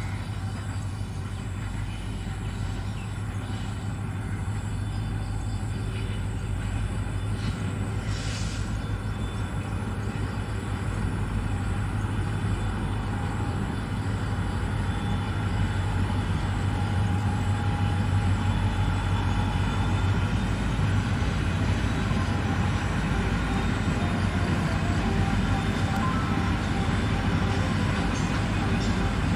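EMD WDG4 diesel-electric locomotive hauling a freight train, its two-stroke 16-cylinder engine running in a steady low drone that grows gradually louder as the train approaches.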